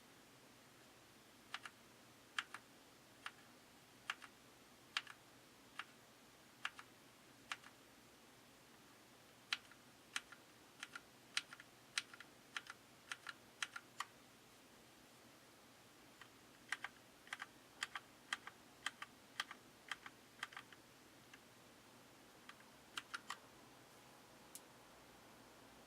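Keys on a Keycool Hero 87 mechanical keyboard with linear black switches being pressed one at a time. Short, separate clacks come in irregular groups, with pauses of a few seconds between the groups.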